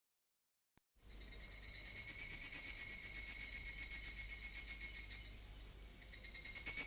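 Background music: high, shimmering jingling tones fading in about a second in, dipping briefly near the end before returning.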